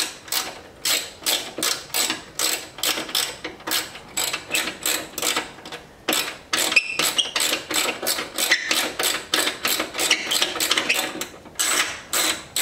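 Ratcheting T40 Torx driver clicking in a steady rhythm, about two to three clicks a second, as a bolt is turned out, with a short pause and a faint high squeak about halfway through.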